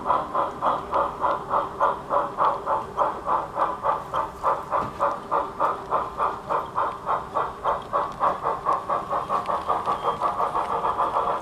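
Model steam locomotive's chuffing sound for a brass Erie L-1 0-8-8-0 camelback, an even beat of about four chuffs a second that quickens slightly near the end as it departs.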